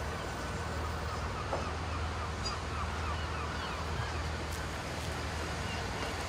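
GWR Turbo diesel multiple unit moving slowly past: a steady low engine hum under wind noise, with short chirping bird calls over it.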